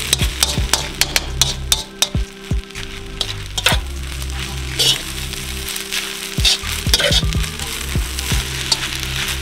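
Chicken fried rice sizzling in a hot wok while a metal spatula stirs and tosses it, with frequent sharp clicks and scrapes of the spatula against the wok.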